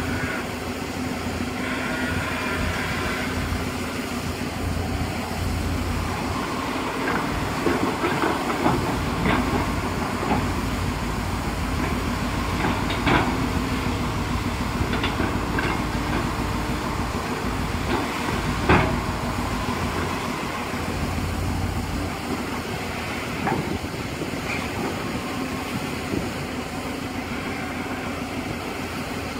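JCB JS205 tracked excavator's diesel engine running steadily as it digs, with scattered metallic clanks from the bucket and arm; the loudest clank comes about two-thirds of the way through.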